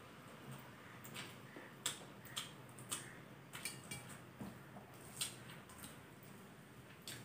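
Eating by hand from a stainless steel plate: fingers mixing rice and curry, with about eight faint, sharp clicks at irregular intervals as fingers and a ring touch the metal plate.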